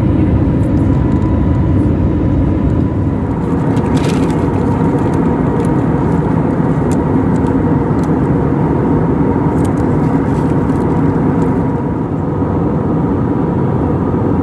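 Steady engine and air noise inside an airliner cabin during the climb after takeoff, a low even rumble with a thin steady whine over it.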